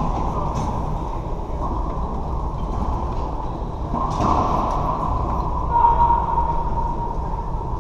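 Athletic shoes squeaking and scuffing on a hardwood racquetball court floor over a steady low rumble, with a longer squeak about six seconds in.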